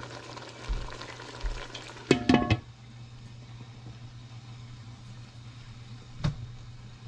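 Glass lid set down onto a cooking pot about two seconds in, clattering a few times with a short ring, as the pot is covered to simmer. A steady low hum runs underneath, and a single sharp knock comes near the end.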